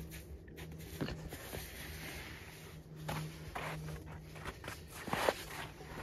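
Footsteps of a hiker walking on old snow, an uneven run of steps with the loudest about five seconds in, over a faint steady low hum.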